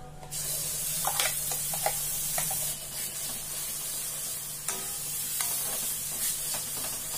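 Wet ground moong dal paste hitting hot ghee in a steel kadai, starting to sizzle suddenly about a third of a second in and going on steadily. A spatula clinks and scrapes against the pan several times as the paste is stirred into the roasted wheat flour.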